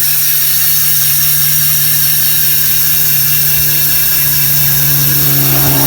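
Rear freehub of a mountain bike, fitted with six pawls, buzzing loudly as the rear wheel spins freely, the pawl clicks so fast they merge into one steady buzz. It stops abruptly near the end.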